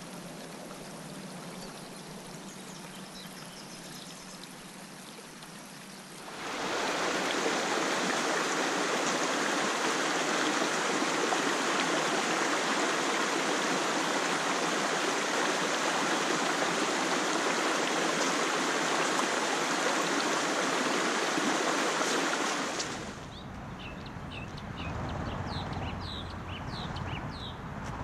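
Shallow rocky creek flowing over stones: a steady rush of water that cuts in suddenly about six seconds in and cuts off again about twenty-three seconds in. Before it there is quieter outdoor air with a few faint bird chirps. After it come many short, high bird chirps.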